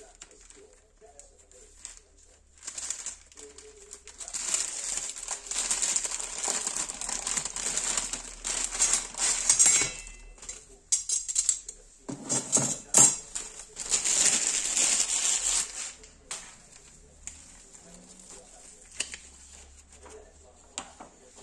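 Plastic stretch wrap and bubble wrap crinkling and rustling in irregular bursts as a packaged chassis kit is unwrapped and a paper sheet is handled. About twelve seconds in, a few sharper knocks as metal mounting rails clank together.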